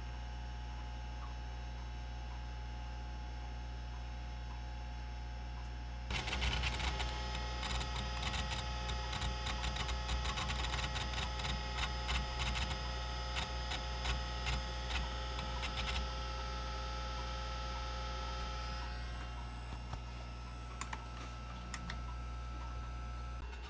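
MiniScribe 6053 MFM hard drive seeking while chkdsk scans the disk: a sudden dense clicking chatter starts about a quarter of the way in, runs for about ten seconds, then thins to scattered clicks. Under it is a steady hum from the running IBM AT and the drive's spinning platters.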